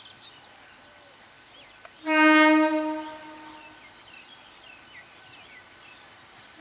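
Electric multiple unit's horn sounding one loud, single-pitched blast about two seconds in that fades out after about a second, with another blast beginning right at the end. Faint bird chirps are heard between the blasts.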